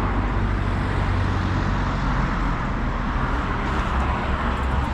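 Camper van driving on the road: steady engine hum and road noise.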